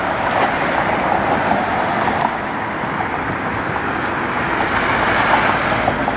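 Steady road traffic noise: the continuous hiss and rumble of moving cars, swelling slightly near the end.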